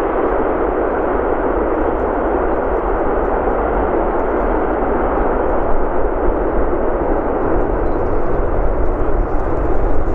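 Jet noise from an Antonov An-124-100M Ruslan's four Progress D-18T turbofans during the landing rollout. It is a steady, heavy roar with a low rumble, easing slightly near the end.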